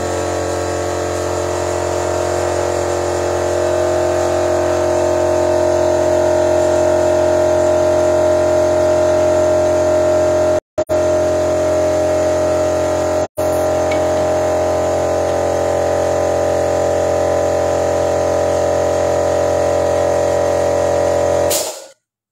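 Car petrol engine running steadily at a held idle while a cleaning fluid is drawn into it by an air-driven engine-flush canister, a carbon-cleaning treatment. The pitch holds steady with two momentary gaps, and the sound cuts off suddenly near the end.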